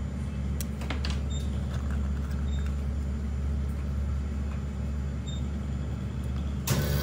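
Steady low hum, with a few faint light clicks as small watch parts are handled. Shortly before the end, a louder sound with several steady tones comes in suddenly.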